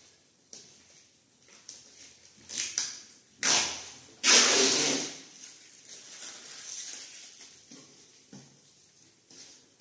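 Thin wood-effect decorative panels handled and shuffled against one another: a string of scrapes and flaps, loudest about three and a half seconds in and in a longer scrape a second later.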